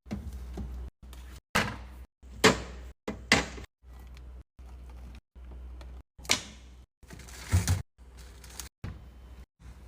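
A string of quickly cut clips of a refrigerator being restocked: sharp clacks and thuds of containers and food packs being set down and slid onto shelves, and fridge doors and drawers opening and shutting, about one knock per short cut.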